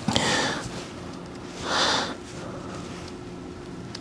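Two short, breathy nasal exhales, like snorts, about a second and a half apart, over a faint steady hum.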